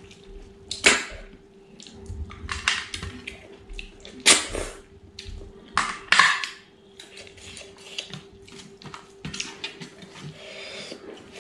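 Close-miked eating of snail curry with rice by hand: wet chewing and lip smacks, with three loud slurping sucks about one, four and six seconds in as snail meat is sucked from the shells, and fingers working rice on a steel plate. A faint steady hum runs underneath.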